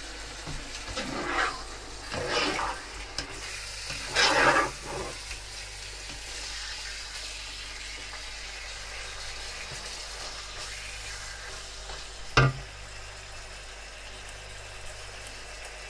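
Chicken pieces frying uncovered in a non-stick wok, sizzling steadily, stirred with a plastic slotted spatula: a few louder stirring scrapes in the first five seconds, then a steady sizzle, with one sharp knock about twelve seconds in.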